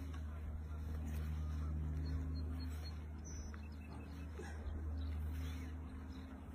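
Steady low hum of an idling engine, with a few faint bird chirps above it.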